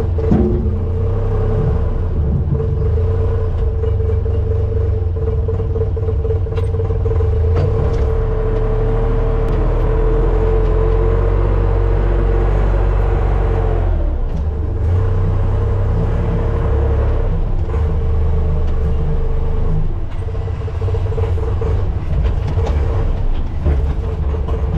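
Farm tractor engine running steadily under load while corn silage is dug out of the silo, with a steady whine over the engine; the engine note dips briefly about 14 seconds in.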